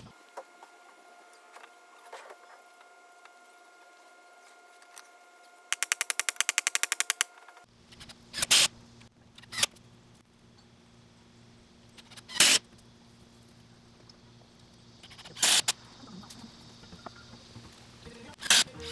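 Cordless drill driving screws in short bursts of about half a second, five times in the second half. Before that, a rapid run of even clicks lasts about a second and a half.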